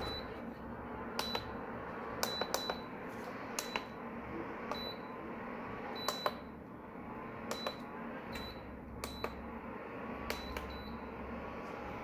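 Prestige PIC 20 induction cooktop's push buttons being pressed one after another, each press a click with a short high beep, more than a dozen in irregular succession. The cooktop's cooling fan runs steadily underneath.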